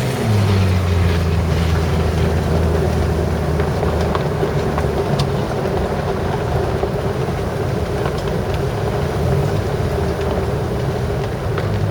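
A motor vehicle engine running, its pitch dropping just at the start and then holding steady, over a steady rush of wind and street noise.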